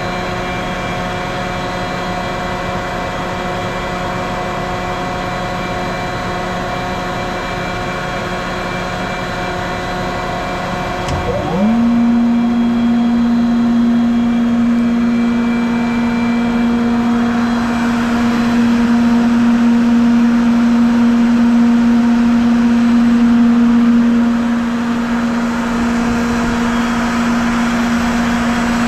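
CompAir L37S-9 rotary screw air compressor with its 37 kW (50 hp) electric motor: a steady machine hum, then about 11 seconds in the compressor starts, its tone sweeping up within a second to a strong steady whine as it runs up to speed, running louder from then on and easing slightly near the end.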